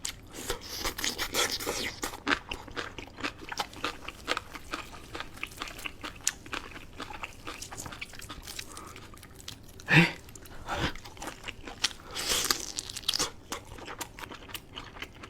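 Close-miked chewing and crunching of food: many short, crisp bites and mouth sounds, with a louder crunch about ten seconds in.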